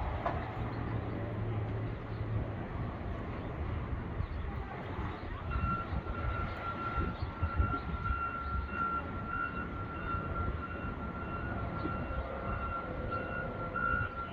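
Vehicle engines running with wind noise in a snowstorm, a dense low rumble. From about five seconds in, a steady high-pitched whine joins them.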